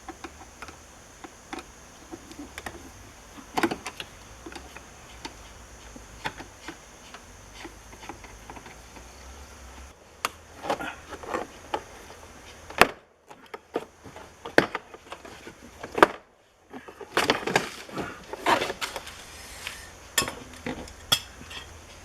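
Irregular light clicks, taps and knocks of small hard parts being handled, thicker and louder in the second half. The sound drops out briefly twice.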